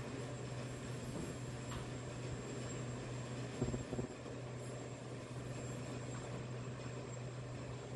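Dental mask production line running: a steady machine hum with continuous mechanical noise, and a couple of louder knocks near the middle.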